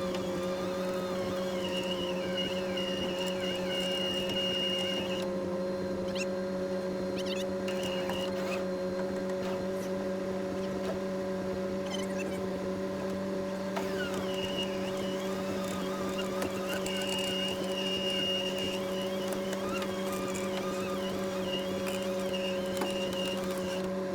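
Engine of a tracked over-snow vehicle running at a steady speed, heard from inside the cab as a constant drone, with a high squeal that comes and goes.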